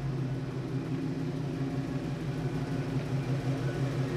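A steady, low mechanical hum that holds the same pitch throughout.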